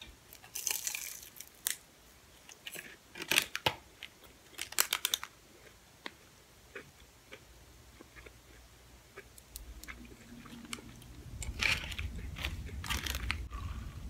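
Close-miked eating: crisp bites and crunchy chewing of a deep-fried egg roll, loudest in the first five seconds, then softer chewing, with two more crunches about twelve and thirteen seconds in. A low rumble builds under it over the last few seconds.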